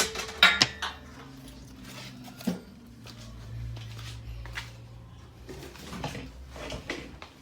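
Sharp clicks and knocks, then a faint low hum from a garage door opener for a couple of seconds in the middle, with a few more clicks near the end.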